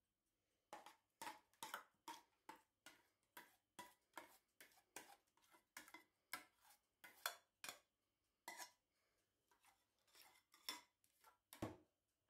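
Metal spoon clinking and scraping against a metal pan and a glass baking dish as white sauce is scooped and spread over lasagna sheets: a run of short clinks about two a second, with a duller knock near the end.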